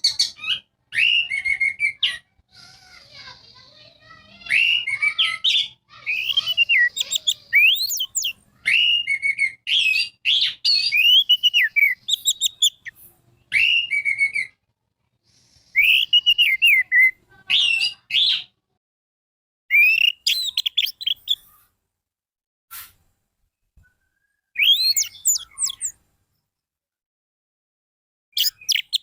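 Orange-headed thrush singing in quick bursts of varied, rapidly gliding whistles and chatter, a canary-like song, with short pauses between phrases. The phrases thin out in the second half, with longer gaps.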